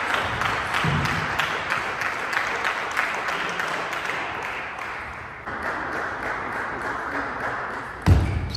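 Scattered applause from a small crowd of spectators, dying away over several seconds. A short, low thump near the end.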